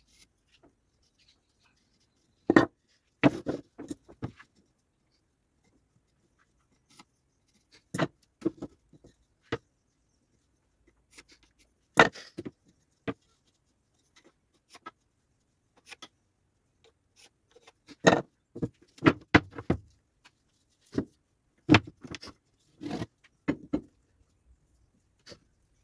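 Irregular knocks and clatter of pieces of wood and tools being handled and set down, coming in short clusters a few seconds apart with quiet gaps between.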